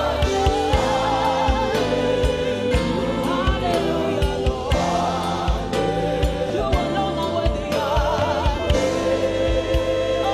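Live gospel worship song: a woman's lead voice with vibrato and men's backing vocals singing into microphones over a band with drums and bass, with regular drum hits keeping a steady beat.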